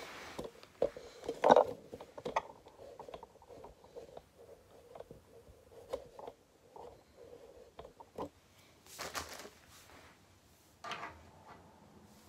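Hand assembly of a metal baby crib: a string of small clicks, knocks and scrapes as bolts on a crib rail are tightened with a hand tool, with one louder knock about a second and a half in and a short scrape about nine seconds in.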